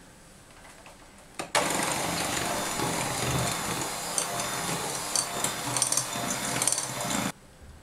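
Electric hand mixer running on low speed, its beaters working through a bowl of beaten egg yolks and whipped whites to combine them. It starts about a second and a half in, runs steadily, and cuts off near the end.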